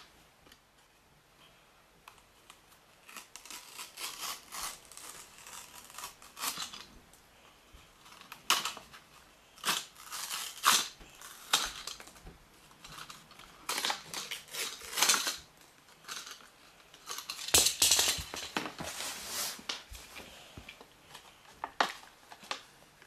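Plastic blister pack and card backing of a small toy train's packaging crinkling and tearing in irregular bursts as it is pulled open by hand.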